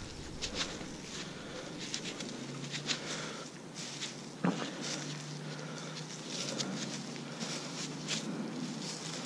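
Faint footsteps and rustling on the forest floor, with scattered light clicks and a faint low hum that comes in about two and a half seconds in.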